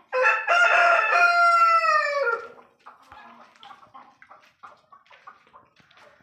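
Desi rooster crowing once, a loud call of a little over two seconds that drops in pitch at the end, followed by faint clucking from the flock.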